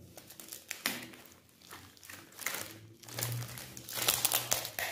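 Metallic foil wrapping on a new motorcycle tyre crinkling and crackling as hands pull and work at it, in scattered bursts that grow louder and busier over the last second and a half.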